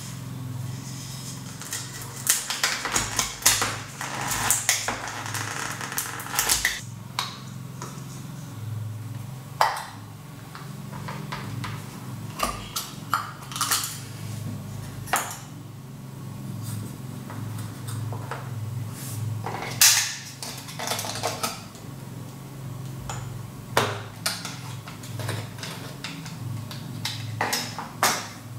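Hands handling and taking apart an LED light bulb: scattered clicks, taps and light scrapes of plastic and metal parts on a tabletop as the dome comes off and the LED circuit board is pulled from the plastic housing. A steady low hum runs underneath.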